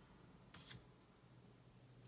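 Near silence: room tone with a faint steady low hum, and one soft rustle of cards being handled about two-thirds of a second in.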